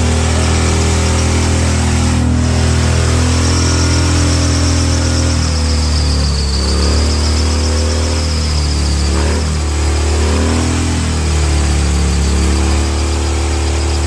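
A bagger motorcycle's V-twin engine held at high revs during a burnout, its pitch rising and falling as the throttle is worked while the rear tire spins. A thin high squeal from the tire wavers through the middle few seconds.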